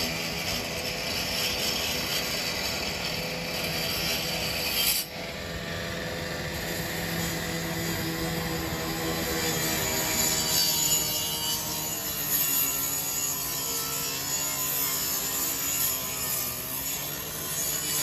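Handheld rotary cut-off saw running and cutting into a burned car's sheet metal, giving a continuous grinding whine. Its pitch wavers as the blade bites, and the sound changes abruptly about five seconds in.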